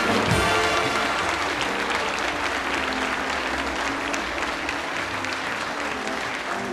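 Studio audience applauding, slowly dying down, with the band's walk-on music fading away under it in the first second.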